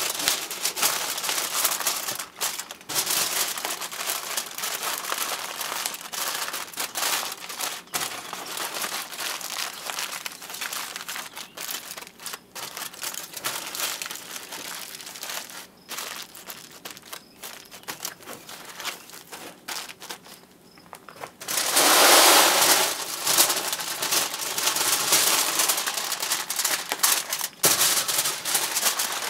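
Wood fire crackling and popping in a pottery kiln's firebox, a dense run of sharp snaps, with a louder rushing surge for a second or so about three-quarters of the way through.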